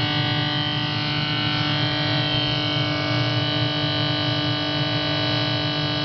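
GE refrigerator making a steady droning hum built from several held tones at once, an irritating noise that is not the fridge's normal running sound.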